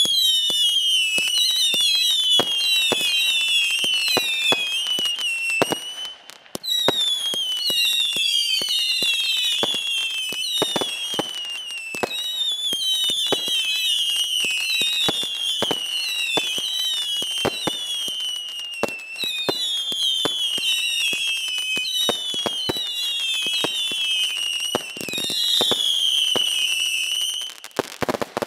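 Silver Spiders 50-shot firework cake firing shot after shot: whistling tails, each falling in pitch and overlapping the next, among sharp cracks from the launches and crackling silver bursts. There is a short lull about six seconds in. Near the end the last row fires together in a dense volley, then it all stops.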